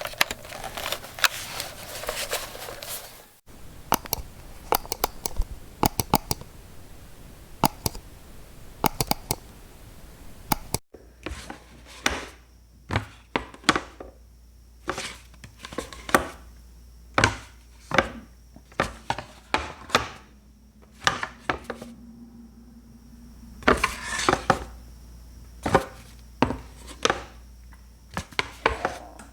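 Button presses clicking for about three seconds, then a run of quick repeated clicks, then a clipboard being handled: its clip snapping and the board knocking, in separate strokes about a second apart.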